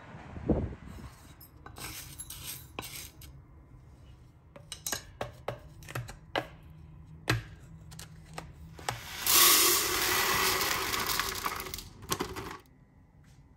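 A wooden spoon clinking and scraping in a steel mixer-grinder jar of ground sambar powder, in short separate strokes. About nine seconds in comes the loudest sound: a rush of dry grains poured into a plastic container for about three seconds, which cuts off suddenly.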